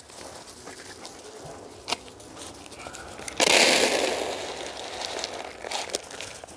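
Rabbit pellets poured from a plastic scoop into a feed bowl: a sudden loud rattling rush about three and a half seconds in that trails off over a couple of seconds. Before it, light rustling and a single sharp click.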